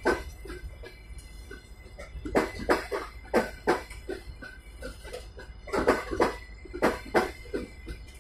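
Wheels of passing double-decker passenger coaches clattering over rail joints in pairs of knocks, one pair for each bogie's two axles, over a steady low rumble.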